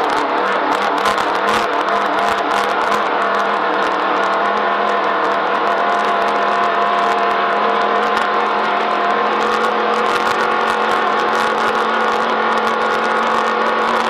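Off-road race vehicle's engine running hard at a steady speed, with a constant stream of rattles and knocks from the vehicle jolting over rough, rocky ground.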